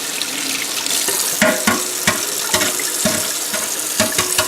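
Kitchen tap running cold water over freshly boiled hard-boiled eggs in the sink, to cool them for peeling. From about a second and a half in come several short clinks and knocks over the running water.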